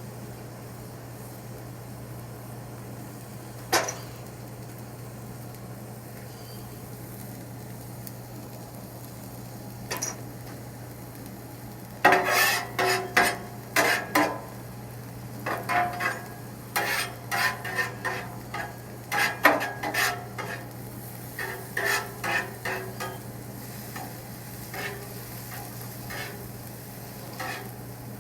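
Onions sizzling on a Blackstone flat-top griddle over a steady low hum, with two single clicks early. About twelve seconds in, metal spatulas start scraping and clanking on the steel griddle in a quick run of ringing strokes, as the onions are tossed, thinning out after about twenty-four seconds.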